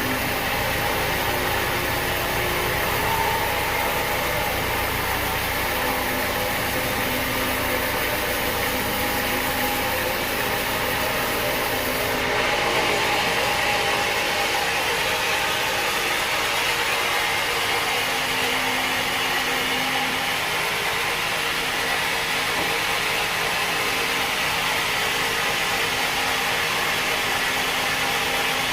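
Sawmill machinery running steadily, an even mechanical drone with a slight change in tone about twelve seconds in.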